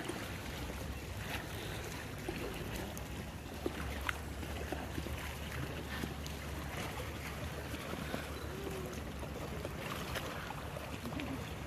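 Paddling in an inflatable canoe: scattered small paddle splashes and drips with water lapping, over a steady low rumble of wind on the microphone.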